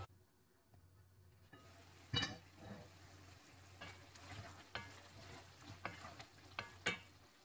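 Wooden spatula stirring and scraping a thick chicken liver curry in a pan over a low sizzle, with repeated short scrapes and a few sharp knocks against the pan. The first second or so is quieter, before the stirring starts.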